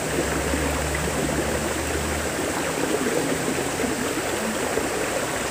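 Steady rush of flowing river water, with a low hum under it for the first two seconds or so.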